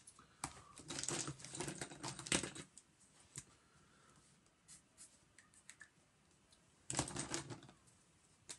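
Light clicking and rattling of marker pens being handled among a pile of pens, in two short flurries with a few faint ticks between.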